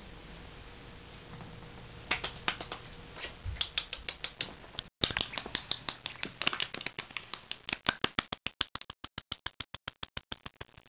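A run of sharp mechanical clicks. They start irregularly, break off briefly about five seconds in, then quicken into an even rattle of about six clicks a second that stops just before the end.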